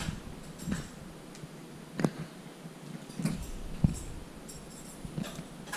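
Soft handling sounds of an adhesive bandage being unwrapped and put on a finger: a few light clicks and faint rustles.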